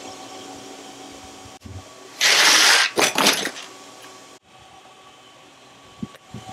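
A steady mechanical hum with a few held tones, then, about two seconds in, a loud crackling rustle of a paper bag lasting under a second, followed by a few softer crinkles. Near the end there are a few light knocks over a quieter hum.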